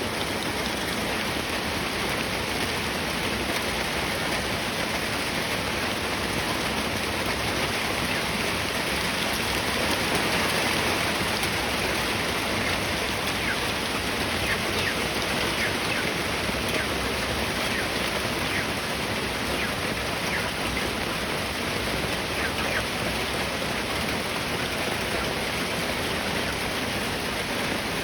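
Steady, even rushing noise of falling water, with a few faint scattered ticks about halfway through.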